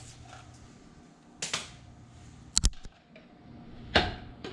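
Kitchen utensils knocking and clicking against dishes and containers, three separate times: once about one and a half seconds in, a sharp double click a little after the middle, and the loudest knock near the end.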